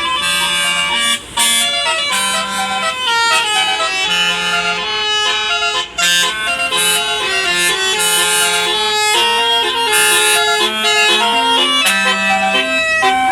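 A Basuri 'telolet' bus horn playing a melody: several buzzy air-horn notes sounding together and changing pitch over a repeating low note, with two brief breaks, one about a second in and one near the middle.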